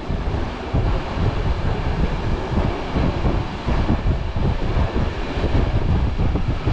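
Wind buffeting the microphone at a moving train's window, over the rumble of the train running along the track; loud and gusty.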